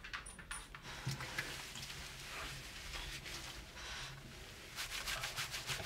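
Water running and splashing in a dog-grooming tub as a small dog is bathed, with a low steady hum underneath and some brief splashing patter near the end.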